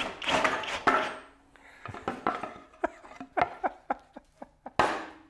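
Irregular clattering and knocking of wood and tool being handled, with louder rustling bursts in the first second and again near the end.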